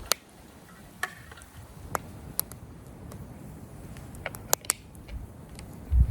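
Wood campfire crackling, with sharp irregular pops every second or so over a low steady rumble, and a heavier low thump near the end.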